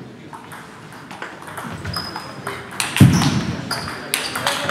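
Table tennis rally: the ball clicks off the paddles and table, the hits coming quicker and louder from about two seconds in. A heavy thump about three seconds in is the loudest sound.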